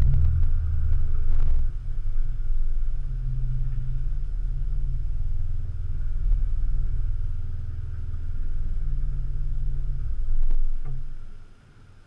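BMW E46 330Ci's 3.0-litre straight-six running at low revs through a Bastuck aftermarket exhaust: a steady low rumble that rises and falls a little. It drops away sharply about a second before the end.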